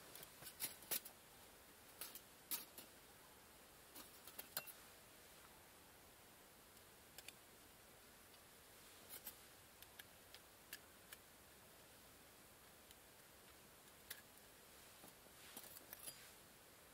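Scattered small clicks and taps from small camping gear being handled by hand, coming in short clusters with near silence between them.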